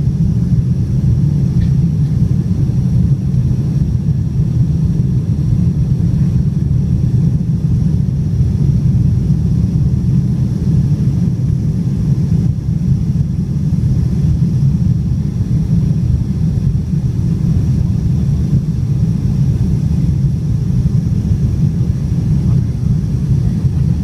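Steady, loud low rumble of engine and airflow noise inside the cabin of a Boeing 747-400 airliner in flight at low altitude with its flaps extended.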